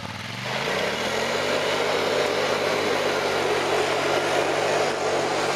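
ATV engine revving up over the first second, then running steadily at raised revs.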